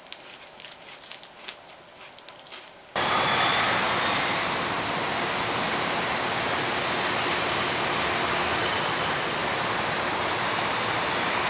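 Faint crinkling and crunching clicks, then, about three seconds in, a sudden switch to a loud, steady rushing noise with no clear tone in it.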